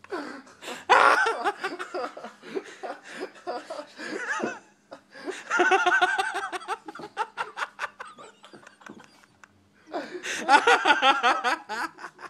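Laughter in three bursts with short pauses between them, over a faint steady hum and scattered short clicks.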